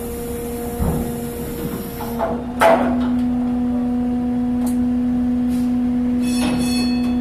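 Ferry machinery running with a steady pitched hum, broken by metallic clanks: one about a second in, a louder one near three seconds, and lighter knocks after.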